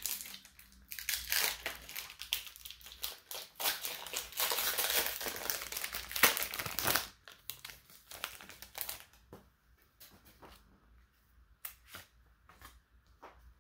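Foil trading-card booster pack crinkling and tearing in the hands, busiest for the first several seconds with one sharp crackle about six seconds in. After that come quieter, scattered ticks as the cards are handled.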